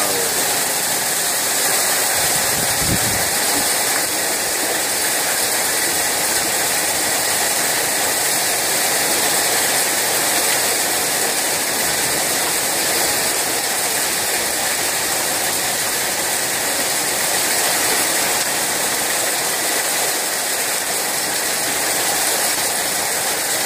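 Heavy rain pouring down and drumming steadily on corrugated metal carport roofs, with a brief low thump about three seconds in.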